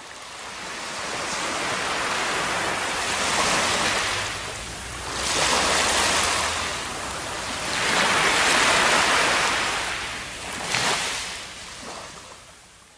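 Ocean surf washing up on a sandy beach, swelling and receding about three times, rising in at the start and dying away near the end.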